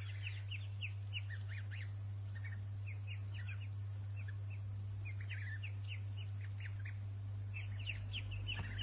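Small birds chirping: many quick, short chirps in runs with brief pauses, over a steady low electrical-sounding hum.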